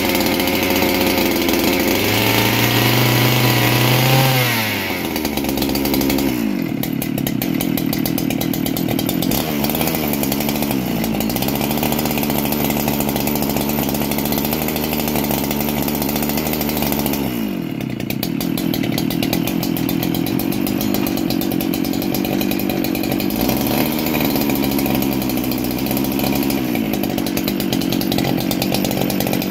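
Husqvarna 395XP two-stroke chainsaw engine running, revved high for about the first four seconds, then dropping back to lower revs, with the speed falling and rising a few times. It is being run to test the chain oiler, which leaks; the owner suspects a worn oil pump plunger.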